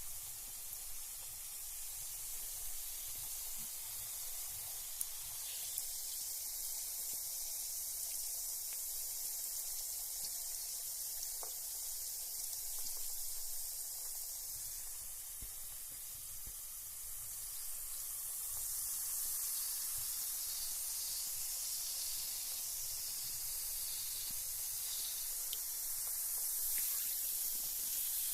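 Carbonated bath bomb fizzing in bath water: a steady, high hiss of fine bubbles, with a few faint ticks.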